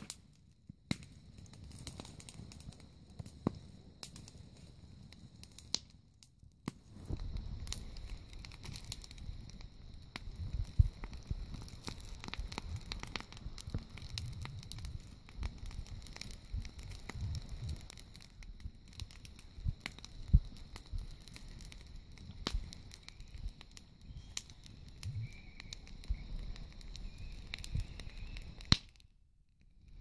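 Wood fire burning in a fire pit, crackling with frequent sharp pops and snaps, a couple of them much louder than the rest. A low rumble joins about a quarter of the way in, and the sound drops out briefly just before the end.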